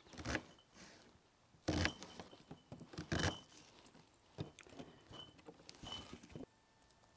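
Paring knife cutting through a raw onion on a cutting board: several crisp crunches and taps of the blade at uneven intervals, the loudest about two and three seconds in. The sound cuts off suddenly near the end.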